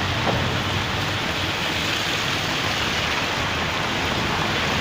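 Steady heavy rain falling and pattering on surfaces, a dense even hiss.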